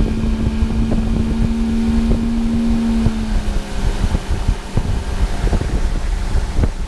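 Fishing boat's outboard motor running at speed, with wind buffeting the microphone and water rushing past the hull. A steady engine tone fades out about halfway through while the rumble and buffeting go on.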